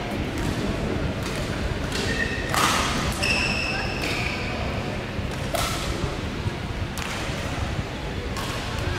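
Badminton doubles rally: rackets striking the shuttlecock in sharp hits roughly a second apart, with brief shoe squeaks on the court mat. Steady background murmur of voices in a reverberant hall.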